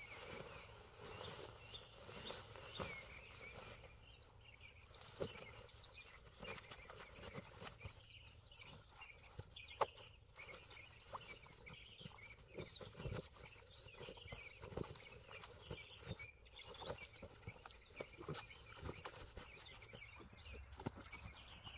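Faint birdsong, many small birds chirping in woodland, with scattered knocks and clicks of camping gear being handled and packed; one sharp click about ten seconds in is the loudest.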